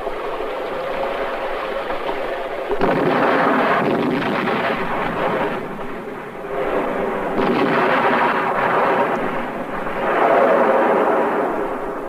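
Battle sounds from an old war film's soundtrack: continuous gunfire and explosions that rise and fall in waves.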